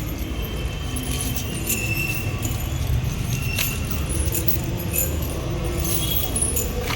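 Light metallic jingling and clinking, scattered short strikes over a steady low rumble.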